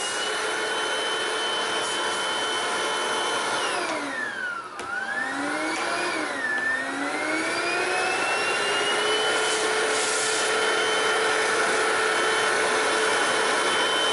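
Hoover CRUISE+ cordless stick vacuum running with a high motor whine. About four seconds in the whine falls steeply in pitch and climbs straight back up, dips briefly again near seven seconds, then settles to a steady pitch.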